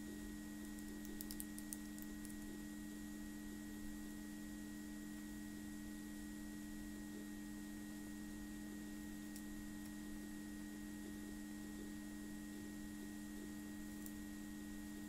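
Steady low electrical hum with a faint high steady whine, typical of a webcam microphone's noise floor. A few faint clicks come through, a cluster about a second in and single ones near the middle and near the end.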